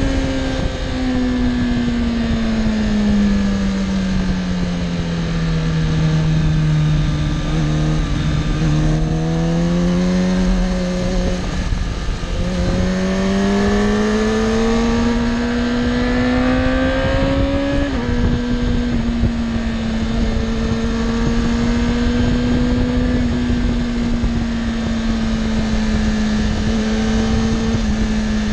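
Sport motorcycle engine heard from on board, over wind rush on the microphone. The revs fall as it slows into a bend, rise again with a brief break near the middle, climb once more, then hold fairly steady for the last ten seconds.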